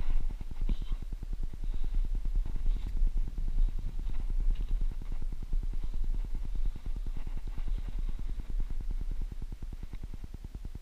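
Wind buffeting the camera microphone, a continuous low rumble that pulses unevenly, with a few faint scuffs.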